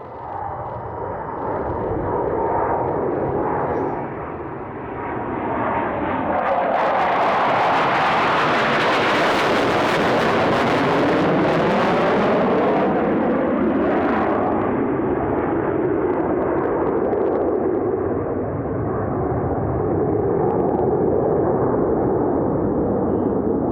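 Jet engines of two Boeing F/A-18 Super Hornets making a slow low pass in carrier landing configuration. The jet noise builds, is loudest from about eight to thirteen seconds in with a sweeping, phasing whoosh as they go by, then stays loud as they move off.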